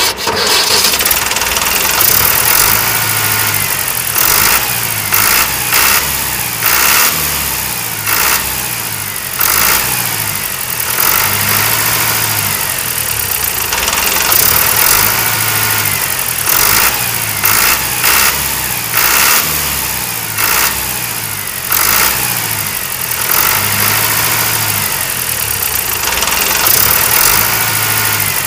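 Diesel tractor engine sound running and revving in a loop that repeats about every six seconds, with a steady low chug.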